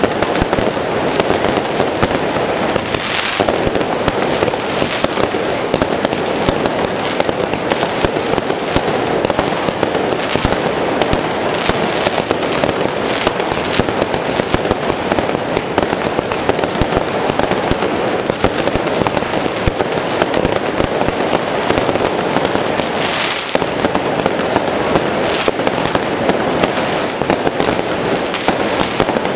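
Fireworks going off in a dense, unbroken crackle of firecrackers and spark fountains, with louder bursts about three seconds in and again about four-fifths of the way through.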